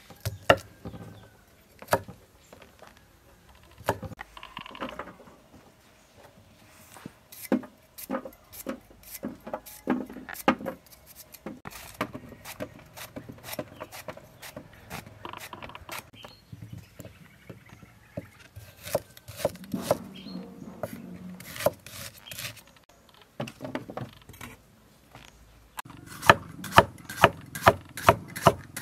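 Cleaver chopping vegetables such as yardlong beans and bitter melon on a wooden chopping board: scattered knocks of the blade on the wood, then a fast, even run of chops near the end, about four a second.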